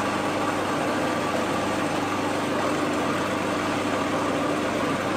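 Electric food processor running steadily as light olive oil is drizzled in through the feed tube, emulsifying the smoked cod's roe into taramasalata that is starting to thicken.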